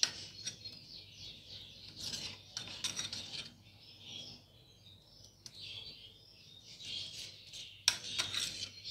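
Small metal spoon stirring and scraping damp hand-feeding formula in a plastic bowl, with scattered light clicks of the spoon against the bowl. Birds chirp steadily in the background.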